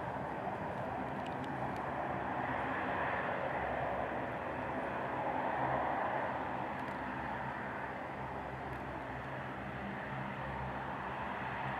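Twin-turboprop regional airliner rolling out along the runway after landing: a steady engine and propeller drone with a low hum under it. It swells to its loudest about six seconds in as the aircraft passes, then eases off.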